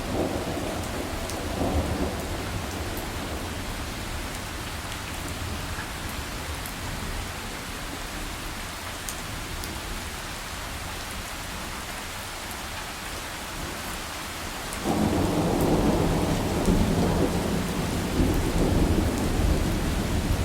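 Heavy rain falling steadily, with rolling thunder. The rumble eases over the first few seconds, then a loud roll of thunder comes in suddenly near the end and keeps rumbling.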